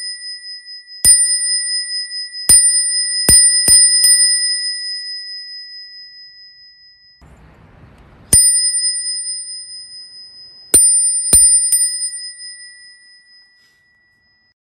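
Crane E-Ne bicycle bell rung by its thumb-flicked striker: clear dings with a long ringing sustain. Several strikes come in quick succession in the first four seconds, then a second series starts about eight seconds in, and the ring fades out near the end.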